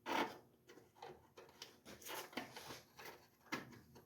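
Small metal clicks and scrapes, irregular and light, of Phillips screws being handled and turned into a washing machine's panel, with a sharper knock at the start.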